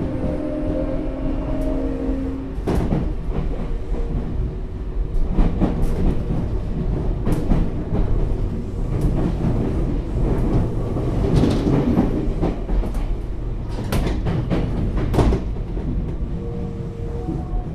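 Tokyu 9000 series electric train running, heard from inside the car. The Hitachi GTO inverter's motor tones hold steady and stop about two and a half seconds in. After that comes wheel and rail rumble with repeated clicks over rail joints, and the tones return near the end.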